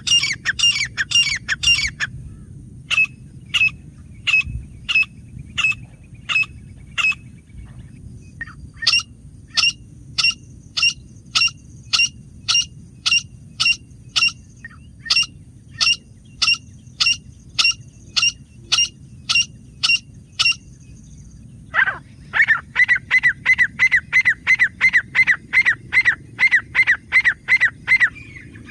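Grey francolin (teetar) calling: a long string of short, sharp, high calls repeated in series. The calls come fast at first, then at about two a second, and near the end in a quicker run of about three a second.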